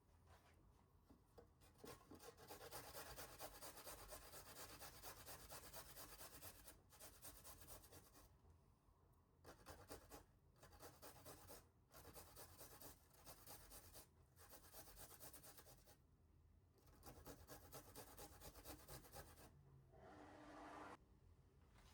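Soft, continuous scraping and rubbing, in stretches broken by short pauses. A brief pitched sound comes near the end.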